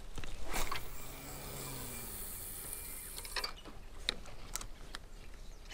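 Handling noise: a few light clicks and knocks, with a stretch of rustling hiss in the middle.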